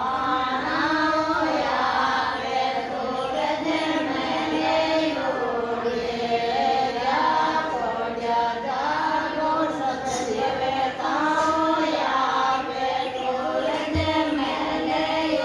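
A group of women singing together in unison, a chant-like song of held and sliding notes that runs without a break.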